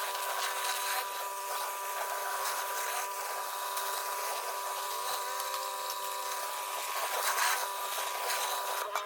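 Pressure washer cleaning sandstone paving: a steady hiss of high-pressure water spray over a constant machine whine.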